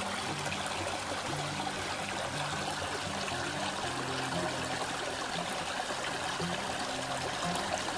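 A small river's water flowing steadily: an even rushing and trickling.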